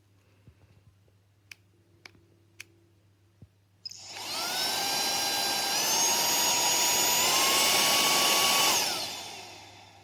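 Motor of a Lyiazsoy cordless handheld car vacuum and air blower, switched on after a few light clicks, running with a high whine that steps up in pitch twice, then switched off near the end and winding down.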